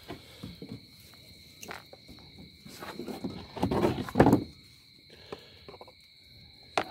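Crickets chirping steadily as a high, continuous trill. From about three to four and a half seconds in, a loud rustling rumble of the camera being handled and moved drowns them out. A few sharp clicks are scattered through.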